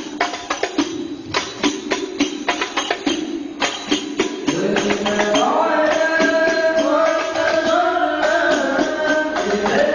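A hadrah ensemble of rebana hand frame drums plays a quick, interlocking rhythm. About halfway through, voices come in singing a devotional melody over the drums.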